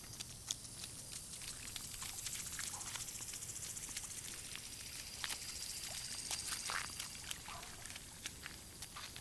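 A toddler's sandaled feet stepping and splashing through a shallow puddle on pavement: a run of small, irregular splashes and slaps.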